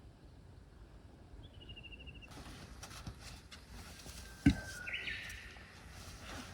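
A faint short bird trill, then about four and a half seconds in a single sharp knock, followed by a brief hissing sound.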